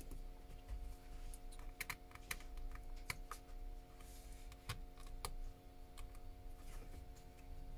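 Irregular light clicks and taps, a few a second and unevenly spaced, over a steady electrical hum.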